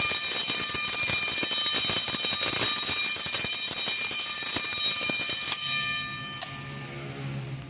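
Electric fire alarm bell ringing loudly with a rapid, even hammering. Its ring is cut off about five and a half seconds in and dies away over the next second.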